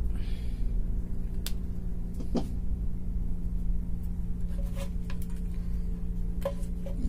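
A steady low electrical hum, with a few short clicks and taps from speaker wires being handled and connected.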